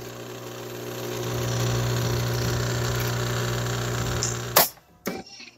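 Jura Impressa E8 bean-to-cup coffee machine humming steadily as it pumps coffee out through its twin spouts. The hum stops with a click near the end.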